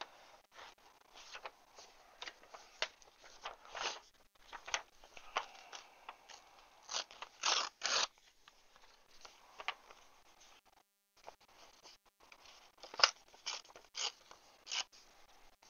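Paper and craft materials handled on a tabletop: irregular crinkling and crackling, loudest in a cluster about seven to eight seconds in and in a sharp crackle about thirteen seconds in.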